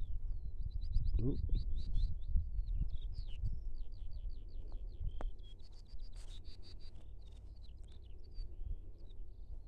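Small birds singing: a fast, continuous run of high chirps and trills over a low rumble.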